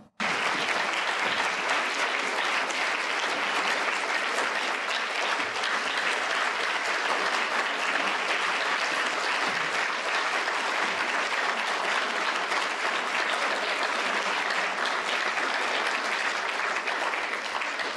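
Audience applauding steadily; the applause begins abruptly.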